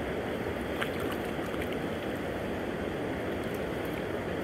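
Steady rush of a flowing river at the bank, with a couple of faint water splashes about a second in from hands working at the surface.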